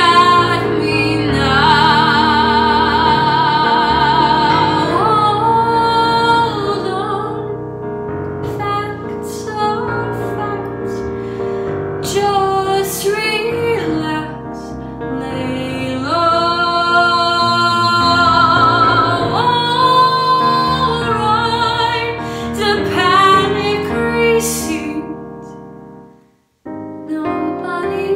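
A woman sings a musical-theatre ballad over piano accompaniment, holding long notes with vibrato. Near the end the sound fades and cuts out for a moment, then the piano comes back in.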